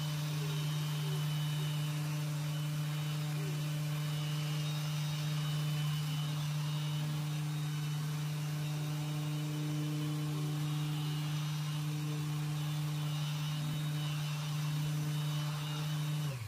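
Mirka random orbital sander running steadily with an even hum and hiss as it is worked over a cured epoxy resin tabletop. Near the end it is switched off, and the hum drops in pitch as it spins down and stops.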